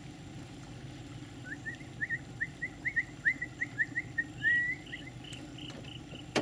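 A bird calling: a series of short rising chirps, about three a second, then a quicker run of higher notes near the end. A steady low hum runs underneath.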